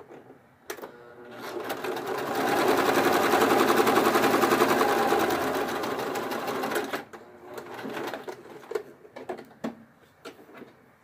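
Electric sewing machine stitching. It speeds up over about a second, runs fast and steady for about five seconds, then slows and stops, followed by a few light clicks.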